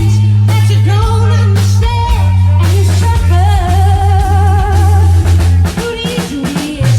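Loud rock-style song with a singing voice, electric guitar, heavy bass and a drum kit with snare hits.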